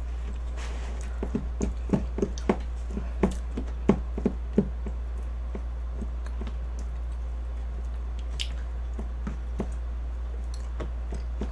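Plastic spoon tapping and scraping against a plastic lunchbox tray while food is scooped: a quick run of small clicks in the first few seconds, then scattered taps. A steady low electrical hum runs underneath.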